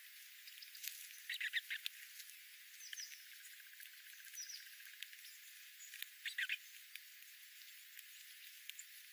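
Small birds chirping: two quick bursts of high chirps, about a second and a half in and again past six seconds, with a few short falling notes between, over a steady high hiss.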